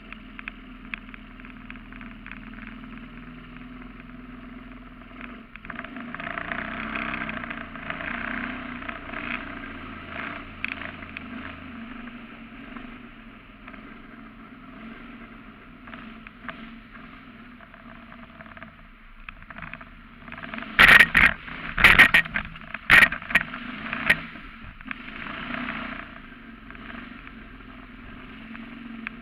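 Surface-drive mud motor pushing a duck boat under way, running steadily and speeding up for a few seconds about six seconds in. Some 21 seconds in, a handful of loud, sharp knocks come over about three seconds.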